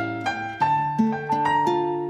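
Background music of plucked string notes over held chords.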